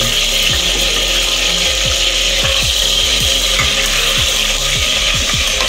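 Chicken and potatoes sizzling in a pressure cooker while a spatula scrapes and stirs them in quick, regular strokes, about two or three a second, over a steady frying hiss.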